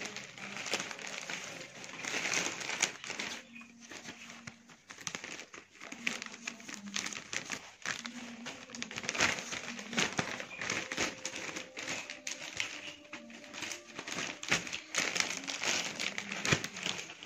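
Plastic courier mailer bags crinkling and rustling as they are handled, with irregular crackles all the way through.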